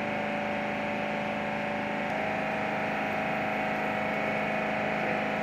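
Steady drone of running machinery: a low hum with a higher steady tone that steps up slightly about two seconds in.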